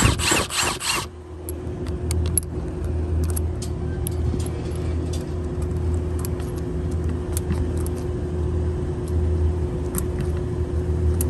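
Steady low hum of an idling vehicle engine, with light metallic clicks and rattles as a hex bit is handled in the quick-release chuck of a Milwaukee M18 Surge impact driver whose wire retaining spring has worked loose. A short, loud rattling noise comes in the first second.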